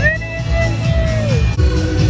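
Music with a heavy low beat and a held note that slides down and stops about one and a half seconds in.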